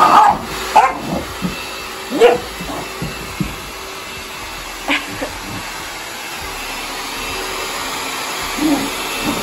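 Handheld hair dryer running steadily while a young puppy being dried gives several short barks and yips over it, the loudest about two seconds in.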